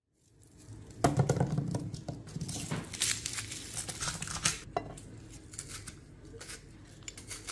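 Metal garlic press and garlic cloves handled on a ceramic plate: a dense flurry of clicks and knocks starting about a second in, then sparser clinks as cloves are squeezed through the press.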